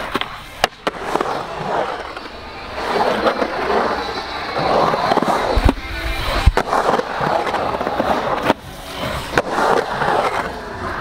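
Skateboard wheels rolling on hard ground, broken by several sharp clacks and slaps of the board hitting the ground. The heaviest are two landing thumps about a second apart in the middle.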